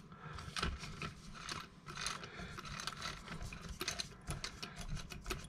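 Hands handling the plastic parts of an RC buggy kit: a string of irregular small clicks, taps and rattles with light rustling.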